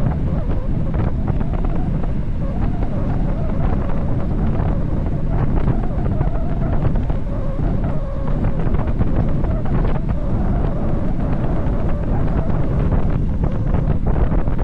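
Strong wind buffeting the microphone of a bicycle descending fast downhill: a loud, steady rush, with a faint wavering tone under it.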